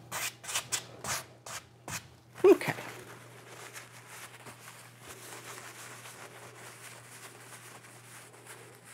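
A wide 2-inch oil-painting brush scrubbed back and forth across a canvas in quick scratchy strokes, about four a second, for the first two seconds. A brief voiced sound comes next and is the loudest thing, then soft rustling as the brush is wiped in a paper towel.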